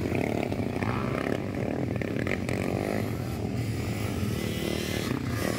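Motocross dirt bike engines running and revving as the bikes ride around the track.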